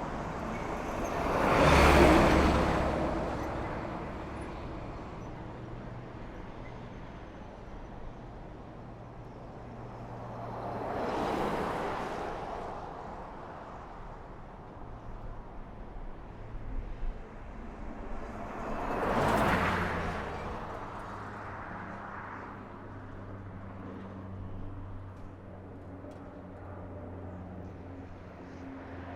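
Road traffic: three vehicles pass one at a time, each rising and fading, about two, eleven and nineteen seconds in, the first the loudest. Between them runs a steady low rumble of more distant traffic.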